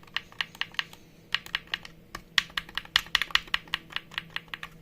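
Power button on a Kimo MP 200 pressure meter clicking, pressed again and again, about five or six sharp clicks a second with a short pause near one second in. The button still clicks, but the meter does not turn on.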